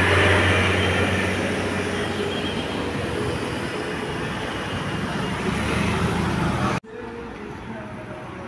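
A bus passing close by: loud engine and road noise that slowly fades as it moves away, then cuts off suddenly about two-thirds of the way through, leaving quieter traffic noise.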